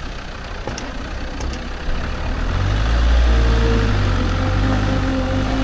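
Land Rover Defender's engine running as the vehicle drives along a rough track, with road and body noise; the engine gets louder about two and a half seconds in.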